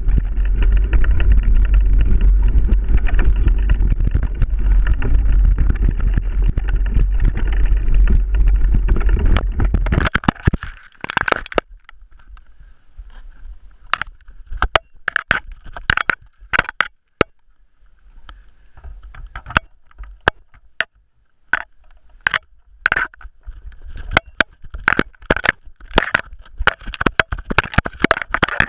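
Heavy wind buffeting and trail rumble on a GoPro riding along on a mountain bike descent, loud and steady. About ten seconds in it stops abruptly, and irregular sharp knocks, clicks and rattles follow as the camera is jostled and handled.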